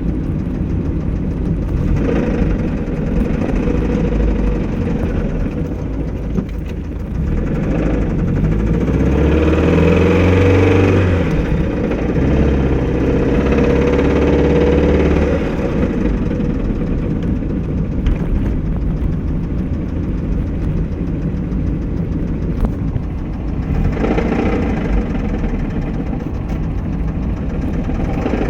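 1994 Mazda Miata's 1.8-litre four-cylinder engine running with a knocking noise, which the owner takes for either rod knock or a bad lifter. The revs are held up for several seconds in the middle.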